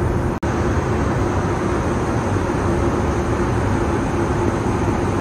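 Steady rush of engine and airflow noise inside the cabin of an Airbus A320neo in flight, with a steady hum under it. The sound cuts out for an instant about half a second in.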